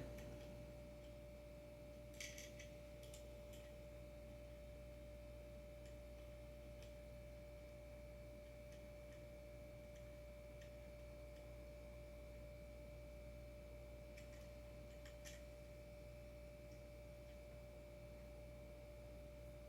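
Near silence: room tone with a faint steady hum, and a few faint small clicks about 2 seconds in and again near the 15-second mark.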